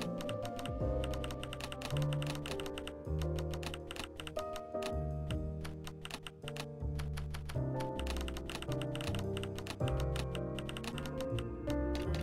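Background music with held bass and chord notes changing about every second, over rapid, irregular clicking like computer-keyboard typing.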